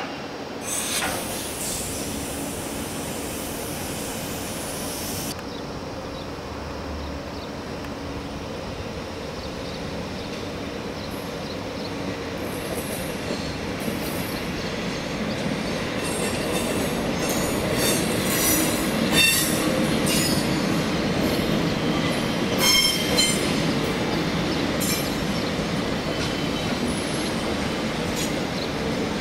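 A train rolling by on the rails, its wheels squealing on and off with high-pitched screeches; the running noise grows louder and the squeals are strongest in the second half.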